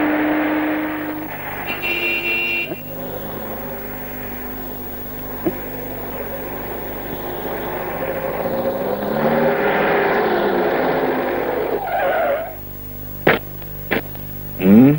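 A car engine running and drawing closer, swelling in loudness, then falling away as the car pulls up. Two sharp knocks follow, then a loud rising sound just before the end.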